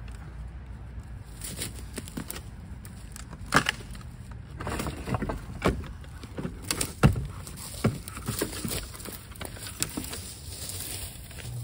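Dry deadwood and brush snapping and cracking as a long dead branch is pulled free from a pile of fallen logs, with dry leaves and twigs rustling. The snaps come irregularly, the sharpest about three and a half and seven seconds in.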